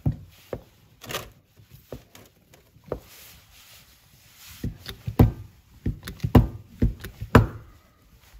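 Hand-pumped hydraulic crimping tool being worked to close its die on a copper lug of a heavy battery cable: a few scattered knocks and clicks, then a quick run of them, about three a second, as the handle is pumped.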